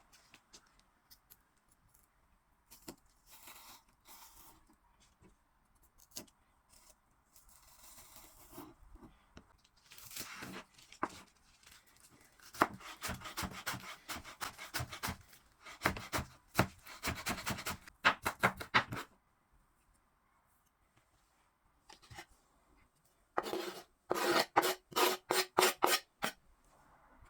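Raw vegetables, cabbage or carrot, being shredded by hand with quick repeated strokes, in two runs: one through the middle and a shorter one near the end, with quieter kitchen handling between.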